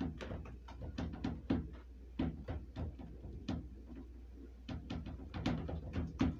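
Fingertips pressing sticky pizza dough into a metal sheet pan on a stainless steel table: irregular soft taps and thumps as the dough and the pan are worked.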